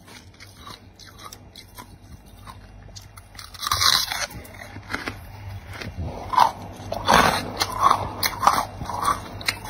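Thick freezer frost being bitten and chewed. After a few quiet seconds of faint clicks there is one loud crunch about four seconds in, then a steady run of crunches a little over once a second near the end.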